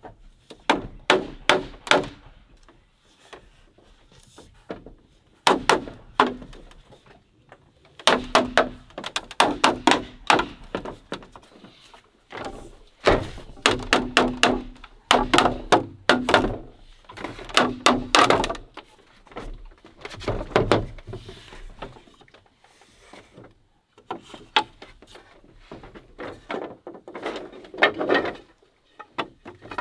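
Repeated sharp knocks of a tool striking green bamboo as crosspieces of a bamboo chair frame are driven into holes in the uprights. The knocks come in quick runs of several strokes, with short pauses between the runs.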